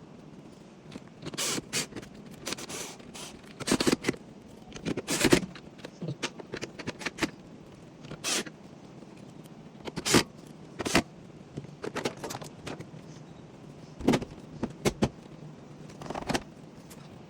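Irregular scrapes, clicks and rustles of parts being handled, about a dozen short bursts of varying loudness over a faint steady hum.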